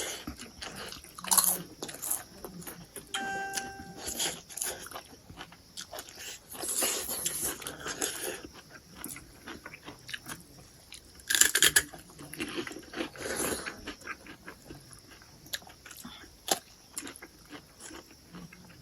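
Close-miked eating of crab: chewing and biting with many sharp clicks and several short noisy bursts, the loudest about a second and a half in and about eleven seconds in. About three seconds in, a brief pitched ringing tone.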